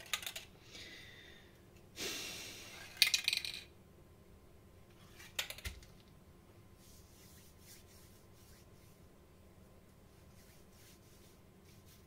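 Aerosol spray paint can hissing in short bursts, the longest about two seconds in, followed by a cluster of sharp metallic clicks and knocks, loudest around three seconds, and a few more clicks a couple of seconds later as the can is handled and set down.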